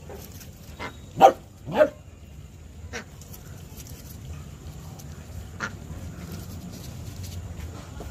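A dog barks twice, a little over half a second apart, about a second in. A few fainter short calls follow later.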